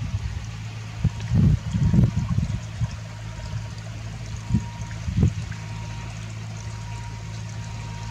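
Water splashing and trickling from a model paddle steamer's turning paddle wheels, over a steady low hum. Wind gusts buffet the microphone from about a second and a half in to two and a half seconds, and twice more around the middle.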